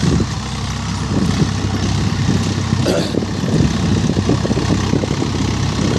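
Swaraj 855 tractor's three-cylinder diesel engine running steadily under load as it pulls a disc harrow through the soil, with an even, fast low throb.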